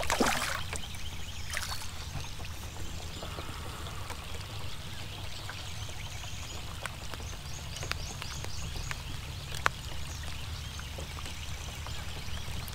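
Water splashing, loudest in the first half second, then quieter water sounds with scattered light ticks over a low steady hum.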